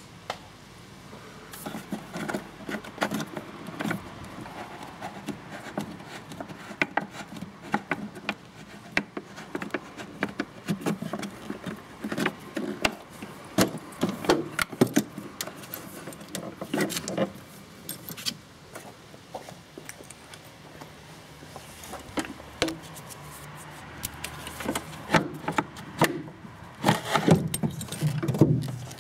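Metal hand tools and fasteners clinking and rattling while a car battery's hold-down is unbolted: a run of irregular sharp clicks and knocks, with a cluster of heavier knocks near the end.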